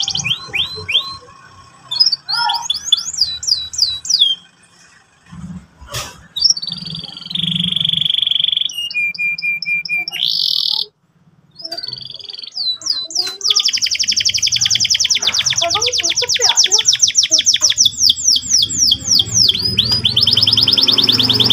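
Domestic canary singing a long varied song: fast rolling trills of quick repeated downward sweeps, held buzzy notes and chattering phrases. There is a short break about halfway, then a dense rapid roll through the second half.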